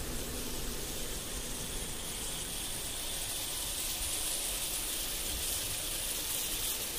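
Steady wind noise on the microphone: a dense hiss with a low rumble underneath, cutting off suddenly at the very end.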